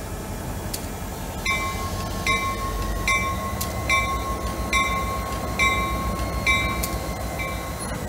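Freight train rolling slowly with a low rumble, and about a second and a half in a locomotive bell starts ringing, a strike a little under once a second, stopping just before the end.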